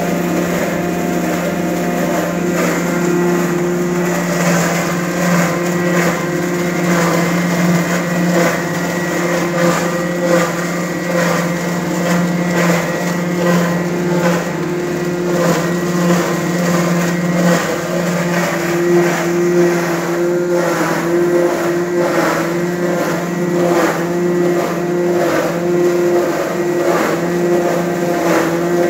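Electric ginger garlic paste grinding machine running steadily as garlic and ginger are fed into it: a constant motor hum with a regular pulsing grinding noise over it.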